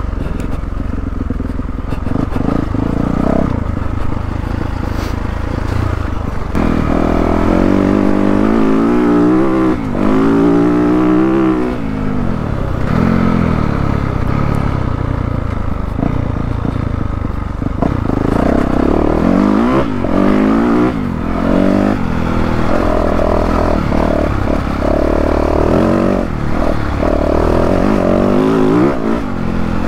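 2022 Yamaha YZ450F's four-stroke single-cylinder engine under way, its pitch rising and falling again and again as the throttle is rolled on and off and it is shifted through the gears.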